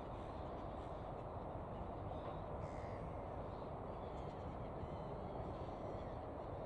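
Gulls calling a few times over a steady low rumble.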